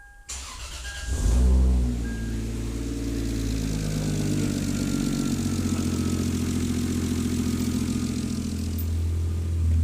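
Toyota 2JZ inline-six with a freshly rebuilt bottom end cranking briefly, catching about a second in with a short rev flare, then settling into a steady idle with no rod knock.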